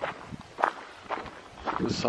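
Footsteps of a person walking on a forest trail, several separate steps about half a second apart.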